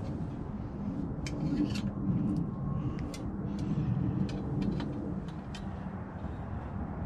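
Light metallic clicks and ticks from hand tools working the screws of a gas grill's burner and igniter bracket, scattered irregularly over a steady low rumble.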